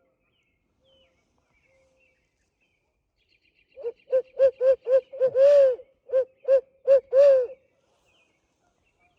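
Owl hooting call blown as a turkey locator: a loud run of about eleven short hoots with two longer, drawn-out ones, sounded to shock a roosted gobbler into gobbling.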